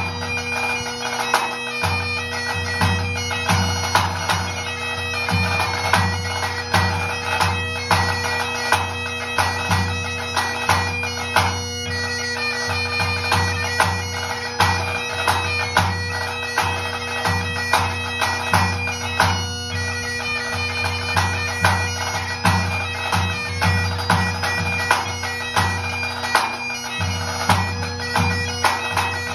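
Great Highland bagpipe playing a pipe tune over its steady drones, with a tenor drum beating in time, its strokes landing as regular deep pulses under the pipes.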